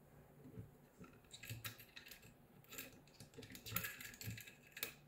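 Faint, irregular clicks and taps of small metal parts and tweezers being worked at a pulley on a 3D-printed plastic motor block, starting about a second in.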